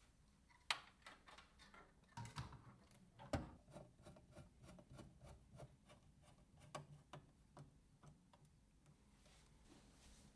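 Faint, irregular small clicks and taps of computer parts being handled and fitted, two or three a second, with sharper knocks about a second in and about three seconds in.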